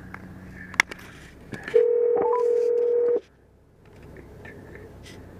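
Ringback tone of an outgoing phone call on speaker: one steady ring about a second and a half long, then a pause while the call waits to be answered. A sharp click comes about a second before the ring.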